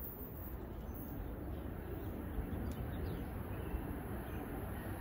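Low, steady rumble of an NJ Transit train approaching from far down the track, slowly growing louder, with a few faint bird chirps.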